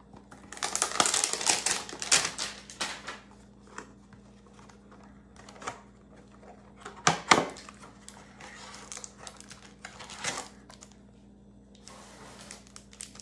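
Foil trading-card pack wrapper crinkling and cards rustling as they are handled, with a long stretch of crinkling in the first few seconds and a few sharp clicks and taps around seven and ten seconds in.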